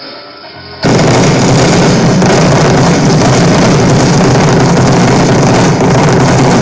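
Fireworks going off in a loud, unbroken barrage that starts abruptly about a second in. The recording is overloaded and distorted.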